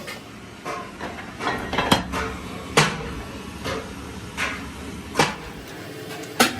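Irregular sharp knocks and clacks of hand-tool work on a tractor tyre, four of them loud, the last near the end, with lighter taps between.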